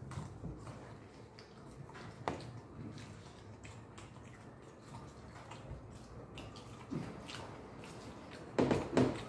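Pani puri being eaten: crisp puris crunched and chewed with wet, slurping mouth noises and scattered small clicks, with two louder wet bursts close together near the end.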